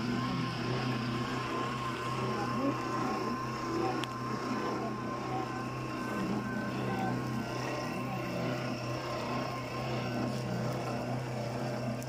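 Steady mechanical drone of a running motor, with a faint wavering whine above it.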